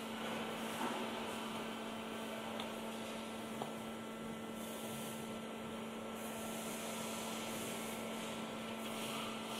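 Steady electrical hum, with a few faint light clicks early on as foam pieces are set down.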